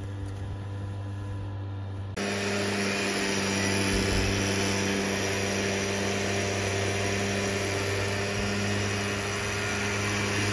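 Backpack motorized mist sprayer's small two-stroke engine running steadily at high speed, blowing a jet of spray through its nozzle. About two seconds in the sound jumps louder, with a stronger rush of air.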